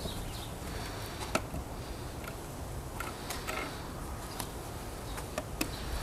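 A few sharp knocks of a wooden nest box against a wall as it is held up and fitted, over a steady low outdoor rumble.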